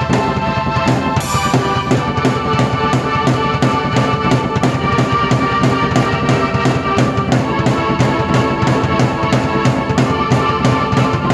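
Drum kit and keyboard played together by one performer: the drums keep a steady beat of about three strokes a second under held keyboard chords and a melody, with a cymbal crash about a second in.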